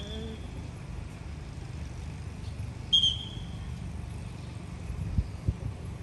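A steady low outdoor rumble, with one short, high-pitched whistle about three seconds in and two soft low thumps near the end.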